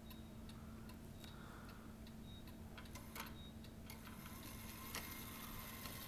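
Faint ticking and mechanical clicking of an 1860s Black Forest automaton clock's movement as the carved soldier figure's arm, mouth and eyes work. A few sharper clicks come about three and five seconds in.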